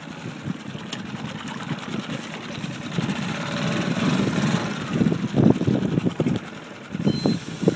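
Boat motor running with the boat under way, its level rising partway through.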